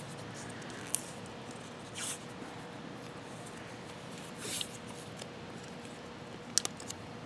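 Vinyl electrical tape being pulled off the roll and wrapped around a spark plug wire: two short peeling rasps and a few light clicks, over a faint steady hum.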